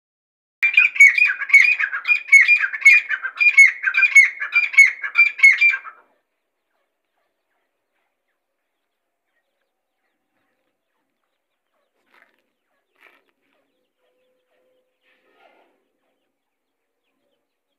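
Grey francolin (Irani teetar) calling: a loud, fast run of about ten repeated shrill phrases, roughly two a second, that stops after some five seconds, followed by a few faint chirps.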